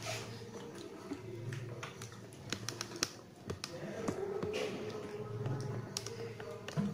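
Scattered light clicks and taps, several close together about halfway through, over a faint murmur of voices.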